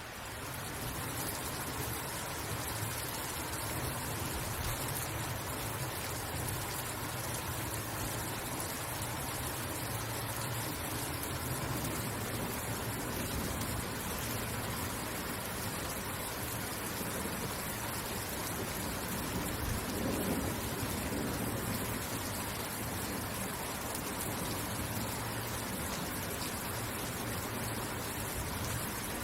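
Steady, continuous rain, an even hiss of falling water. A brief low rumble comes about two-thirds of the way through.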